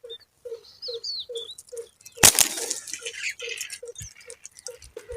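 Small birds chirping over a low pulse that repeats about two to three times a second. About two seconds in comes one sharp, loud crack, then a second of rustling.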